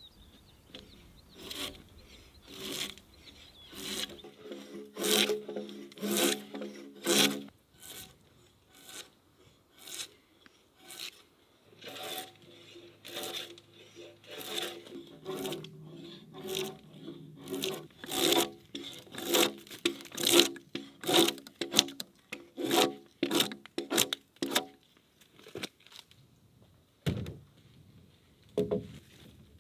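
Drawknife pulled along a peeled log in repeated short scraping strokes, shaving the wood, about one or two strokes a second with a brief pause near the end.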